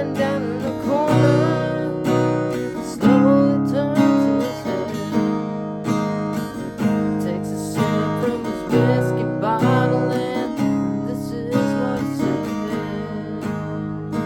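Strummed acoustic guitar with a lead melody of bending, gliding notes over it: an instrumental break in the song.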